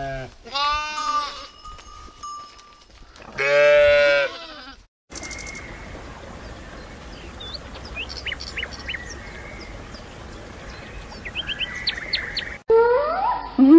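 A flock of sheep bleating, several calls overlapping in the first few seconds, the loudest bleat around four seconds in. The sound then switches to a steady outdoor hiss with scattered short, high chirps. A new rising animal call starts just before the end.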